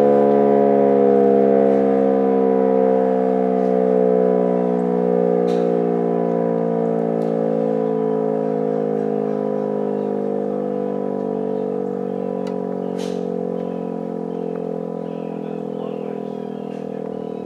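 Federal Signal Model 5 mechanical outdoor warning siren winding down after an attack signal, its pitch sliding slowly lower as it fades. The siren is driven by a VFD that is underpowered for its motor, which the uploader blames for its poor sound.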